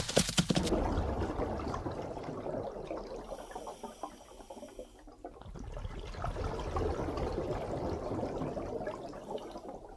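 Water moving, an uneven splashing, trickling sound that fades about halfway through and swells again, after a few sharp clicks in the first second.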